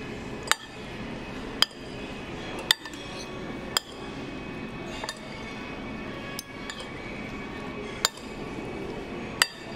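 Metal fork and spoon clinking against a ceramic plate while twirling spaghetti: short sharp clinks about once a second, with a lull in the middle, over a steady background din.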